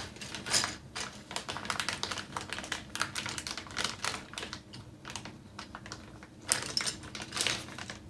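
Clear plastic bag crinkling and rustling as it is handled and opened: a quick, irregular run of crackles, with a few louder crackles about half a second in and twice near the end.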